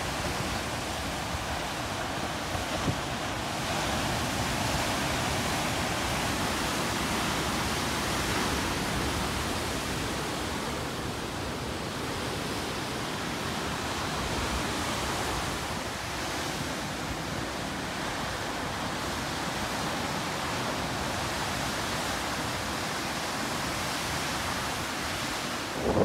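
Ocean surf breaking over rocks and washing around a cliff base: a steady rush of churning white water.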